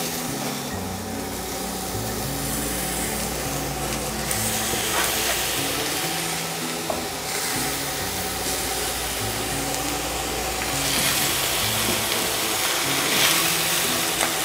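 Bone-in veal rib pieces searing in hot ghee with browned onions in a pan, a steady frying sizzle that swells and eases, with a few light knocks. Background music plays underneath.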